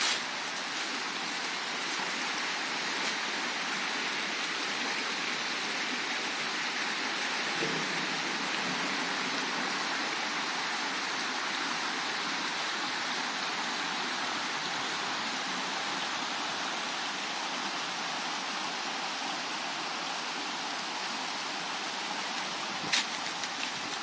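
A fast, shallow woodland stream rushing over stones and shingle, a steady even rush of water.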